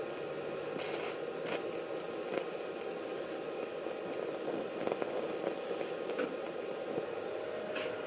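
TIG welding arc from an Everlast 140 ST at about 50 amps: a steady buzzing hiss with a few sharp crackles, heard from inside the welding helmet.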